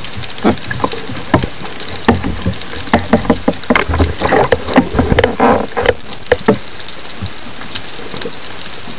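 Water churning and bubbling heard underwater, with many irregular knocks and clicks, as a speared moray eel thrashes on the spear shaft; the knocking is densest in the middle and dies away near the end.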